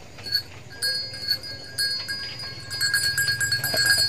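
Sheep grazing close by: grass and rice stubble being torn and chewed in quick, rough pulses that thicken from about three seconds in. A thin high tone sounds on and off.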